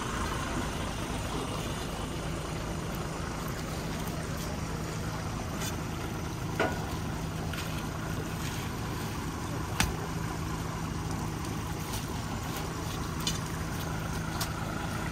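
Heavy truck engine idling steadily under a steady rushing noise, with a few short sharp knocks about six and a half, ten and thirteen seconds in.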